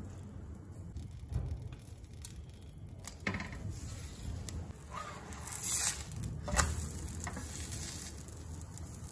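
Leek and egg pancake sizzling in oil in a nonstick frying pan, with a few scrapes and knocks of a wooden spatula against the pan, loudest between about five and seven seconds in.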